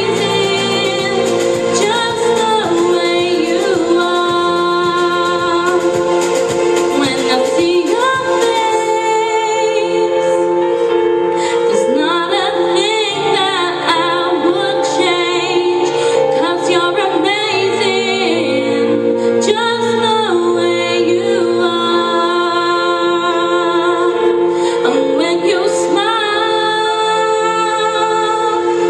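A woman singing into a microphone over sustained accompanying chords, her voice gliding between held notes.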